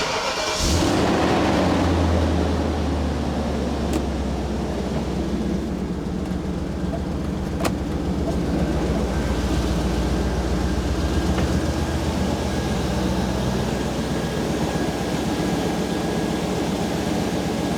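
BMW 840Ci's V8 engine starting up at the very beginning and then idling steadily. Two faint clicks are heard a few seconds apart.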